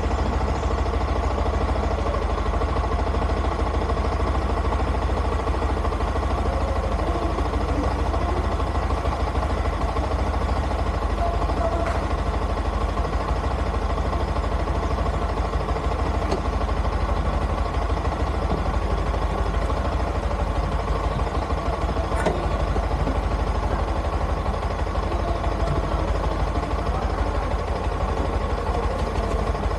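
Motorcycle engine idling steadily, heard close up.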